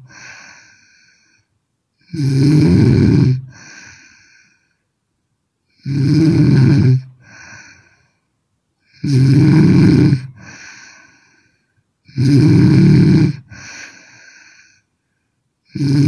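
A woman snoring hard: a loud, low snore comes about every three to four seconds, five in all, each followed by a softer, shorter breath.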